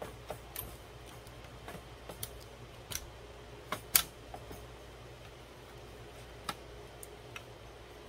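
Scattered light clicks and knocks of plastic and metal server parts being handled as a motherboard is worked into place in a rack-server chassis. About nine in all, the sharpest about four seconds in, over a low steady hum.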